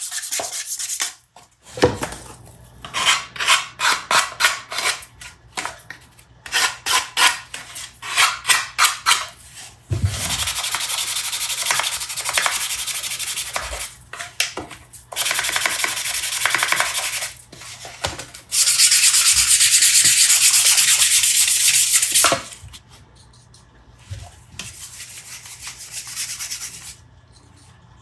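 Wood being sanded: rhythmic back-and-forth hissing strokes, about two to three a second, then longer stretches of steady sanding, with a louder continuous hiss for a few seconds past the middle.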